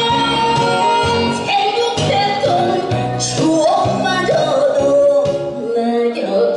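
A woman singing a Korean popular song through a microphone and PA speakers over instrumental accompaniment, with a long wavering held note in the second half.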